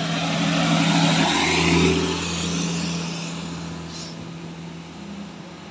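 Mitsubishi L300 pickup's diesel engine labouring up a steep climb under a full load of sand. It grows louder as the truck passes close, peaking about one to two seconds in, then fades as it pulls away uphill.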